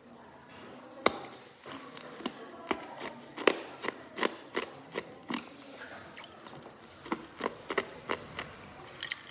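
Hard ice being bitten and chewed, a quick run of sharp, irregular crunches and cracks, with loud snaps about a second in and about three and a half seconds in.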